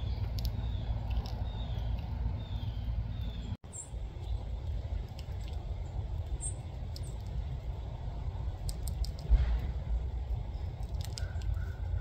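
Steady low background rumble with faint, high, falling bird chirps repeated about five times in the first few seconds. A single low bump comes about nine seconds in, and a run of quick mid-pitched notes near the end.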